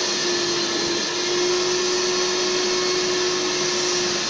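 Kärcher wet-extraction vacuum cleaner running steadily with a constant whine, its upholstery nozzle sucking leftover moisture out of the sofa fabric.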